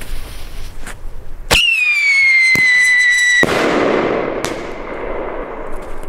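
A Screamshot aerial shell fired from a mortar tube: a sharp launch crack, then a screaming whistle that sinks slightly in pitch for about two seconds, cut off by a loud bang that fades with a long echoing tail.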